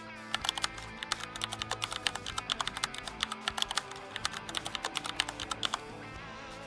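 Rapid keyboard typing clicks, several a second in an uneven run, over soft background music; the clicking stops a little before six seconds in.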